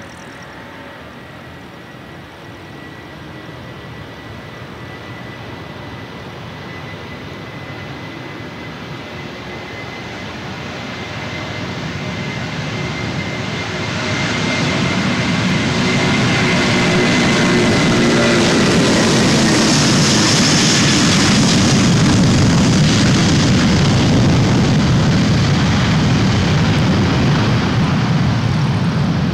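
Airbus A330 jet airliner's engines at departure, growing steadily louder over about fifteen seconds and then staying loud as the aircraft comes past. A steady high whine runs over the deep rumble and sinks a little in pitch around the halfway point.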